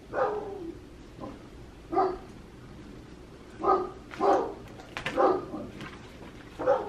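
Dogs barking: about seven or eight short single barks at irregular intervals, a second or so apart.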